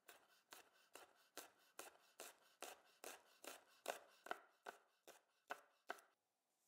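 Japanese chef's knife slicing garlic cloves on a wooden cutting board: about fifteen even knife strokes, a little over two a second, that stop about six seconds in.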